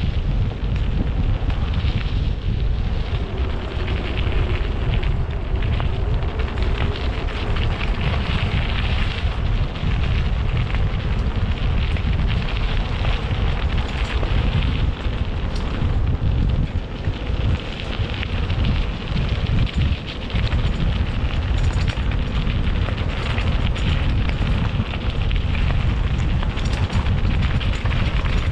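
Wind buffeting the microphone of a camera carried on a moving bicycle: a loud, steady low rumble with a rough hiss above it.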